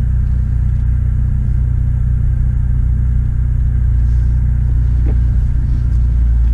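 BMW F30 320i's B48 turbocharged 2.0-litre four-cylinder idling steadily shortly after a start, a deep, even hum.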